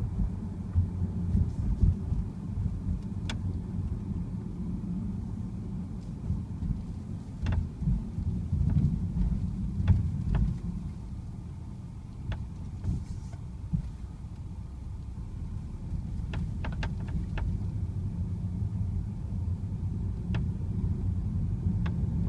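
Steady road and engine rumble inside a moving BMW X1 (E84), with short, sharp creaks from the dashboard every few seconds and a quick run of them about three-quarters of the way through.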